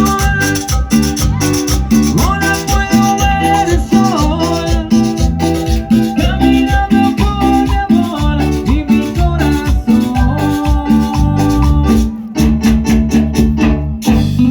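Latin dance music: plucked guitar melody lines over a steady bass and shaker-type percussion, with a brief dip in level about twelve seconds in.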